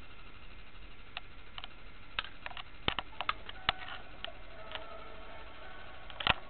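A scattered run of about ten sharp clicks and taps at irregular spacing, with the loudest near the end, over a faint background hiss.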